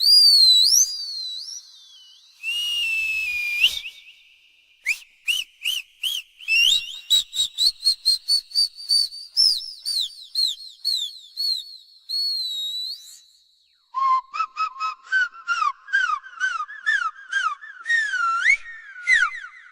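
A run of high whistling sounds: sliding, warbling tones, then quick chirps repeated a few times a second, some rising and some falling in pitch. There is a short break about two thirds of the way in.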